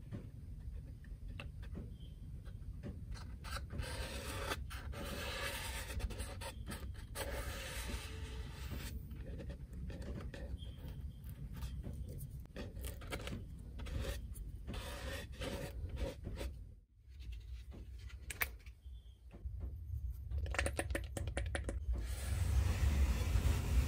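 Fingers rubbing and scratching over the paper cone of a Yamaha NS-1000M woofer, a run of soft, irregular scrapes. Near the end a bristle brush strokes a liquid coating onto the cone.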